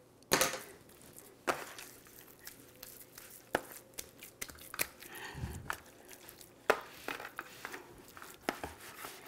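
Hands pressing and shifting a raw, seasoned leg of lamb in an aluminium roasting pan: irregular rustling and handling noise with a few sharp knocks, the loudest just after the start.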